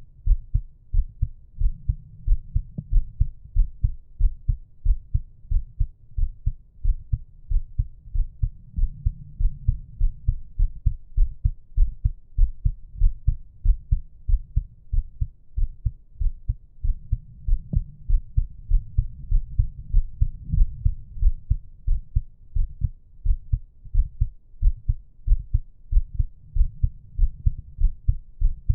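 A human heartbeat at rest, recorded close up: a steady, even train of low thumps. Faint slow breathing swells softly underneath.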